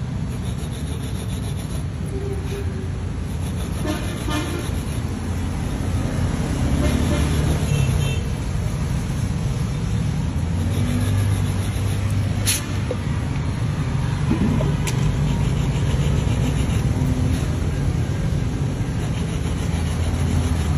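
Steady road-traffic rumble with a vehicle horn tooting, and a couple of sharp clicks.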